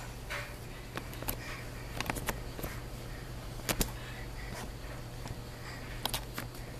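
Handling noise on a phone's microphone: scattered sharp clicks and knocks, about half a dozen, as the phone is bumped and moved, over a steady low hum.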